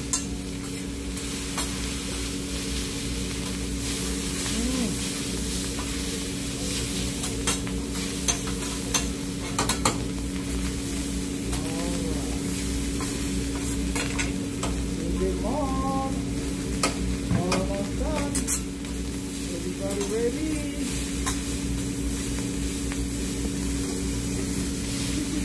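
Fried rice sizzling on a flat steel teppanyaki griddle while metal spatulas scrape, chop and turn it, with sharp clinks of the spatulas striking the plate now and then.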